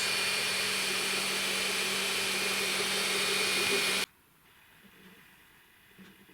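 A 3D printer's fans whirring steadily with a constant hum. It cuts off abruptly about four seconds in, leaving near silence.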